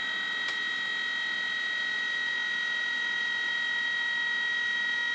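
Nidec 50M060B012 brushless DC motor from an HP 2605 LaserJet laser printer running with a steady high whine whose pitch holds constant while its supply voltage is raised, because a closed-loop speed controller regulates its speed. A single short click about half a second in.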